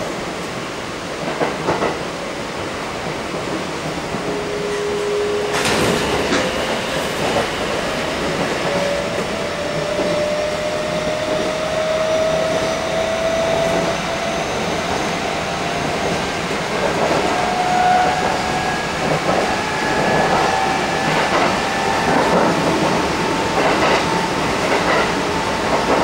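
Kintetsu 1230 series train's Hitachi GTO-VVVF traction motors whining in a steadily rising pitch as the train accelerates, heard inside the passenger car. Wheels click over the rails under a running rumble, with a sharp click about six seconds in.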